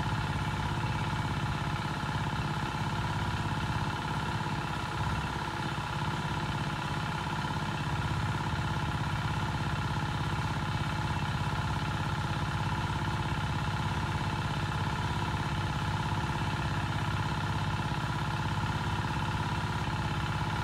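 A small engine running steadily at a constant speed, an even hum that does not change.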